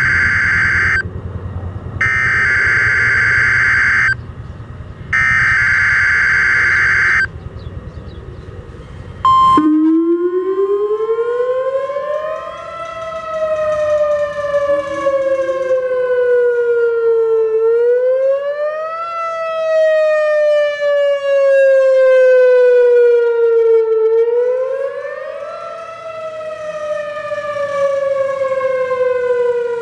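Three bursts of buzzing data tones from an Emergency Alert System broadcast on a weather radio. About nine seconds in, a Whelen WPS-4004 electronic outdoor warning siren starts its wail, rising and falling in pitch roughly every six to seven seconds. A steady high alert tone from the radio sounds over the wail's first several seconds, and the siren is loud enough to overload the microphone.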